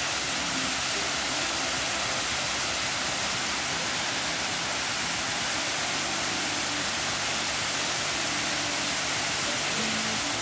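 Waterfall and cascading creek water rushing steadily, a constant hiss of falling water.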